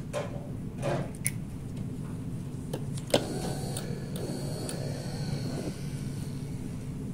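Small plastic clicks of PCR tubes being handled. About three seconds in, a mini centrifuge's lid snaps shut with a loud click, and its motor whirs for a couple of seconds, spinning the samples down to the bottom of the tubes, before it stops.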